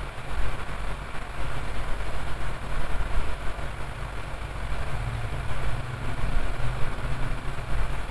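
Cellkit 858DP hot air rework gun running, its fan blowing a steady rush of hot air out of the nozzle onto a tissue, with a low rumble that rises and falls.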